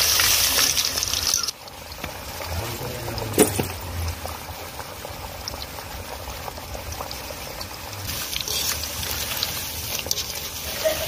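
Chicken pieces deep-frying in hot oil in a steel wok: a loud sizzle that drops off abruptly about a second and a half in, then a quieter, steady bubbling sizzle with a single short knock about three seconds in.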